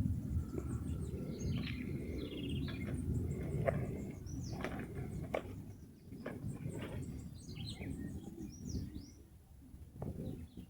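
Several small birds chirping and calling in quick, overlapping phrases, over a low, rough rumble that fades about halfway through.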